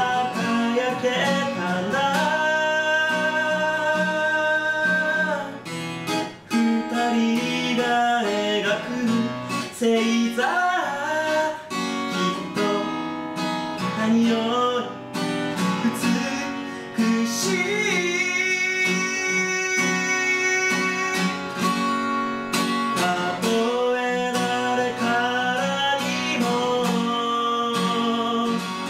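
A man singing live to his own strummed acoustic guitar, holding some long notes.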